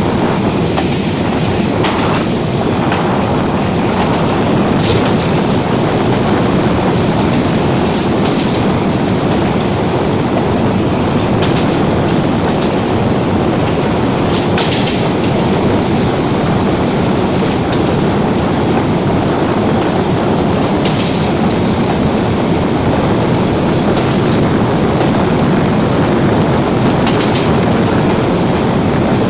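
Metre-gauge commuter train running along the track: a steady rumble and rush of noise, with an occasional faint click from the wheels over the rails.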